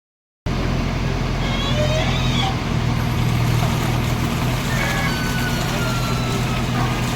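Heavy diesel engine of earth-moving machinery running steadily, starting abruptly about half a second in. Faint thin whistling tones sit over it, one sliding slowly down in pitch near the end.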